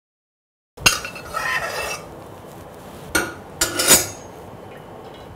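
A stainless-steel mesh strainer and metal spoon clinking and scraping against a steel pressure pan as cooked vegetables are drained. A sharp clank about a second in, then more clanks around three to four seconds in.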